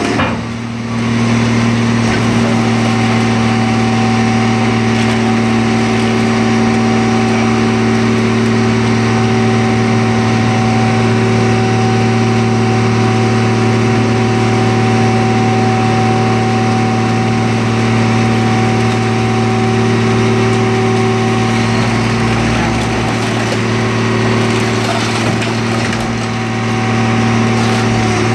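Car crusher's engine-driven hydraulic power unit running under load with a steady hum as the press lid lifts off a flattened car.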